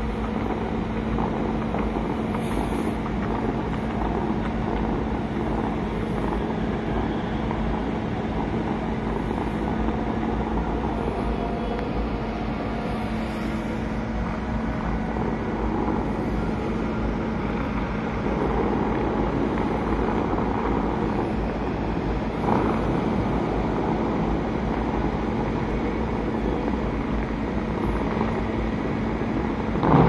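Steady distant city traffic noise with a constant low hum underneath.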